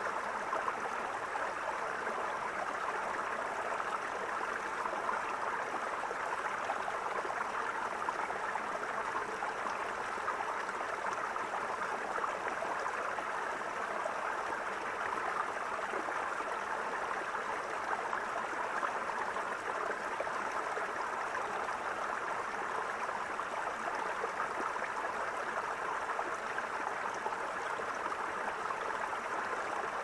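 Shallow rocky stream flowing steadily over and between stones, an even, unbroken rush of water.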